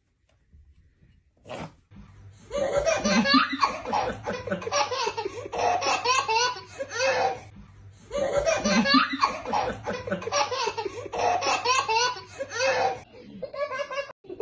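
Loud, hearty laughter in long runs of quick bursts, starting about two seconds in. The same run of laughter seems to play twice in a row, the second time starting about six seconds after the first.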